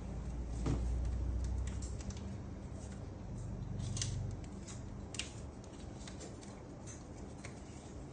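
Small metal instruments being handled: irregular, light, sharp clicks and snips over a low steady hum, the hum loudest in the first two seconds.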